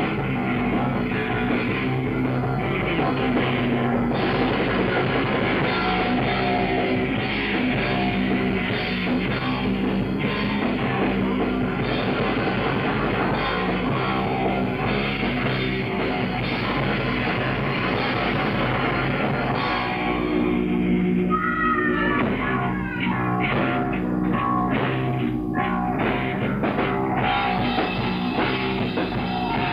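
Hardcore punk band playing live: distorted guitar, bass and drums at full tilt. About two-thirds of the way through, the band drops into a break of stop-start hits with a rising slide, then comes back in full.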